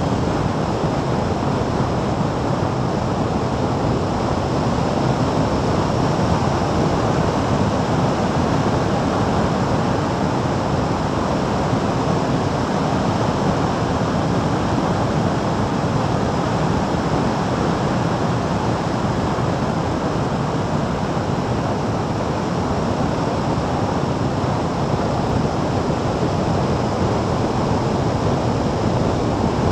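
Steady rush of wind over an action camera's microphone on a moving motorcycle, mixed with road noise, with no change in level.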